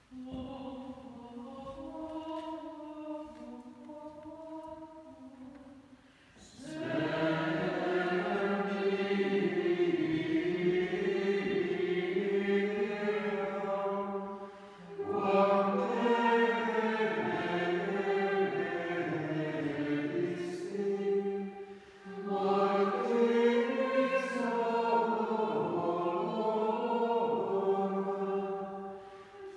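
Dominican friars chanting vespers in unison. A quieter sung phrase opens, then the full group comes in about six seconds in, louder. The group pauses briefly for breath twice between verses.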